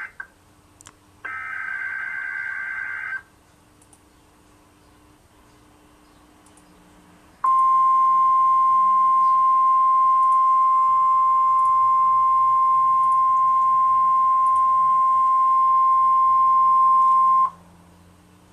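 Emergency Alert System SAME header on NOAA Weather Radio: a harsh, buzzy digital data burst about a second in, lasting about two seconds. After a pause, the 1050 Hz NOAA Weather Radio warning alarm tone sounds as one steady, loud tone for about ten seconds, signalling that a tornado watch message follows.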